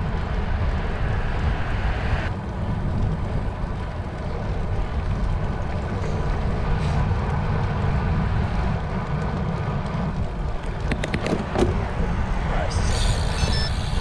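Wind buffeting the microphone of a handlebar-mounted camera on a moving road bicycle: a steady low rumble with road and tyre noise. A short run of sharp clicks comes about eleven seconds in.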